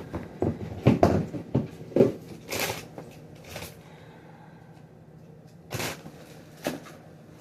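Things being handled in a refrigerator: a quick run of knocks and clatters in the first couple of seconds, then a few short, spaced-out rustling sounds.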